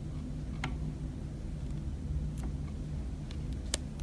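Steady low hum of room tone with a few faint clicks from stiff tarot cards being handled, the sharpest click near the end.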